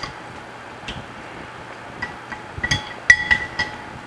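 Wooden rolling pin knocking and rolling on a round marble rolling board as puri dough is rolled out: scattered sharp wooden knocks and clinks that ring briefly, most of them in a quick cluster about three seconds in.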